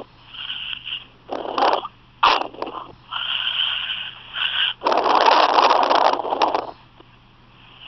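A person hiccuping, with short sharp breathy hiccups, a thin squeaky sound and a long breathy exhale about five seconds in, recorded through a phone's microphone.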